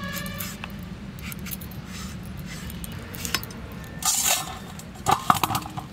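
Green papaya being peeled against the curved iron blade of a bonti: scattered scraping and snicking as strips of peel are sliced off. There is a longer scrape about four seconds in, and a few louder sharp sounds near the end.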